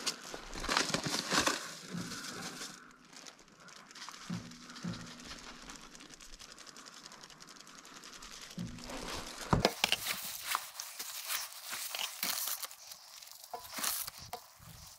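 Crinkling and rustling of plastic being handled, with scattered light clicks. About ten seconds in the sound turns thinner and more crackly.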